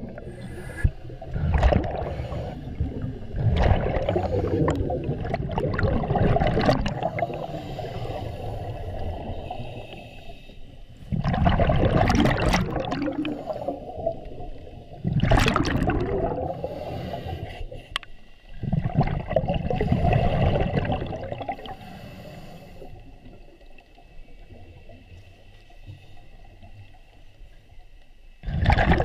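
Muffled underwater water noise as a camera is carried through lake water by a swimming diver. The noise comes in uneven surges with a few sharp clicks and is quieter over the last several seconds.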